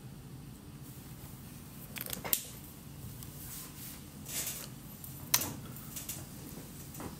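Out-of-shot handling of felt-tip art markers as one is swapped for another: a few short scraping and rustling noises and two sharp clicks, typical of marker caps snapping off and on, over a low steady room hum.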